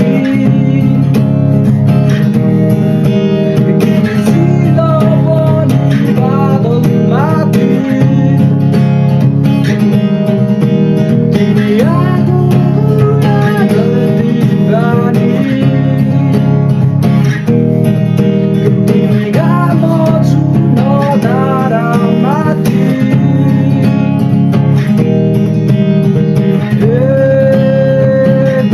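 Music: a song with strummed plucked-string instruments under a melody that slides and bends in pitch, playing steadily throughout.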